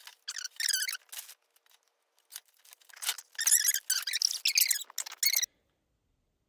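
Evergreen branches being handled: rustling and squeaking in two spells, with a few faint clicks between. The sound cuts off abruptly about five and a half seconds in.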